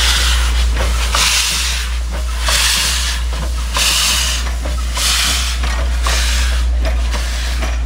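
Glover steam locomotive working slowly, steam hissing out in regular bursts about once every second and a quarter, over a steady low rumble.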